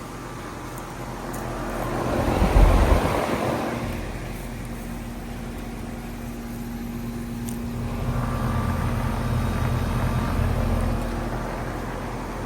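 2006 Goodman GPH13 2-ton packaged heat pump running steadily in cooling mode. About two seconds in, a vehicle passes by, rising and fading within a couple of seconds. The sound swells again for a few seconds near the end.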